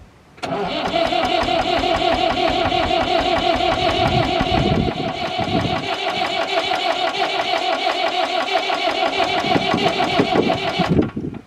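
David Brown 996 tractor's diesel engine cranked over on its starter motor for about ten seconds without catching, a steady rhythmic cranking that starts suddenly and cuts off near the end.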